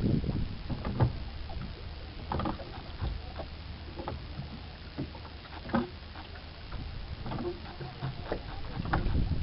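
Small wooden boat being sculled with a single stern oar in an automatic sculling mount: irregular knocks and clicks of the oar working in its mount, about one a second, with the loudest knock about a second in. A low wind rumble on the microphone is strongest near the start and the end.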